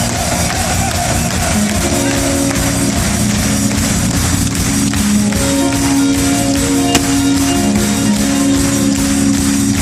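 A live band playing an instrumental passage with a steady beat and held melody notes, with no singing.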